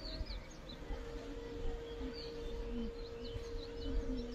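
Asian honey bees (Apis cerana indica) buzzing over an open hive, with one bee flying close and giving a steady hum from about a second in. Birds chirp in the background.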